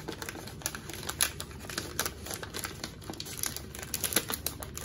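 Crinkling and rustling of a paper-and-plastic self-seal sterilization pouch handled in gloved hands as metal cuticle nippers are pushed into it, with many small irregular clicks.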